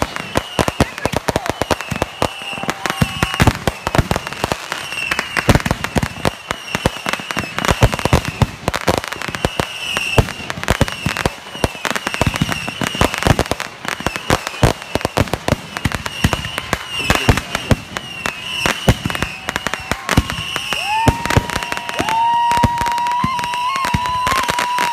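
Fireworks finale: a rapid, continuous barrage of bangs and crackles, many shells bursting in quick succession. About 21 seconds in, a high whistle rises and then holds steady for a few seconds over the bangs.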